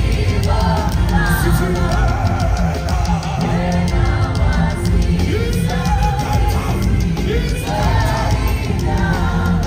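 Live gospel music heard from the audience in a concert hall: singers over a band, with heavy bass.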